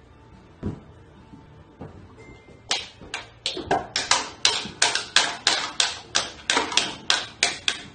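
Toddler hitting a toy drum kit with drumsticks: a single stroke about a second in, then from about the third second a quick, uneven run of strikes, about three a second, each ringing briefly.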